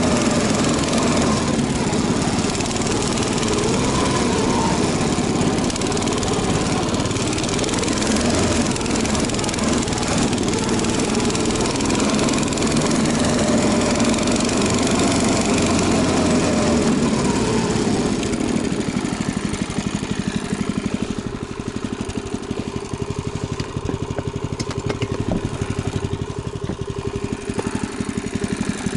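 Small engine of a snow vehicle running steadily. About two-thirds of the way through it quietens and settles into a steadier drone.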